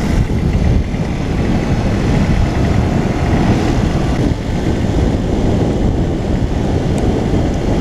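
Heavy wind rushing over a helmet-mounted microphone at speed, mixed with the engines of two small 50 cc motorcycles, a Honda CB 50 J and a Garelli Bonanza, running flat out side by side.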